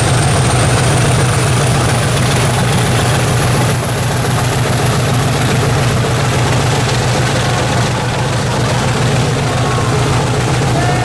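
Diesel locomotive engine running with a loud, steady low drone, and a faint high whine slowly rising in pitch.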